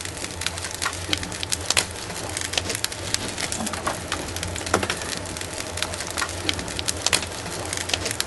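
Wood fire crackling in a narrow-gauge steam locomotive's firebox: many irregular sharp crackles over a steady low hum.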